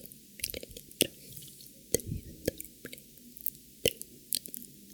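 Close-miked wet mouth sounds: irregular sticky clicks and lip smacks, with a few sharper snaps about one, two and four seconds in.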